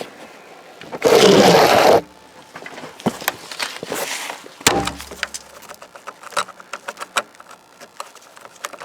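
A plastic license plate lamp housing being worked and pressed into a bumper opening: scattered clicks, taps and scrapes, with a thud about halfway through. A loud second-long rush of noise comes about a second in.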